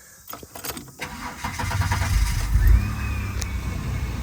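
A 1993 Holden Commodore VR's engine is started: a few key clicks, then the starter cranks and the engine catches about two and a half seconds in with a brief rise, settling into a steady idle. A thin steady whine runs over the idle.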